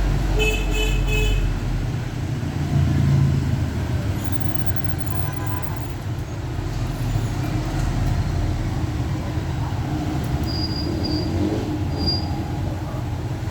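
Steady low rumble with short high-pitched beeps: a quick run of them right at the start and a few more about ten seconds in.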